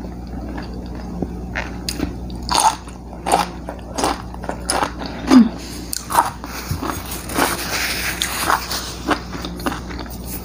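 Close-miked chewing and biting of stir-fried green beans and chicken gizzard: irregular short mouth sounds and crunches, starting about two and a half seconds in, over a faint steady electrical hum.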